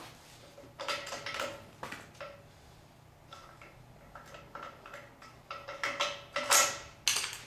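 Steel clinks and clanks of a HYTORC torque driver's sockets being handled and taken off the nuts of a bolted pipe flange. Several short knocks, each with a brief metallic ring; the loudest clank comes near the end.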